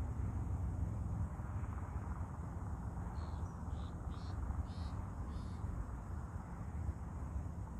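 Open-air ambience: a steady low rumble, with a run of five short, high chirps from about three to five and a half seconds in.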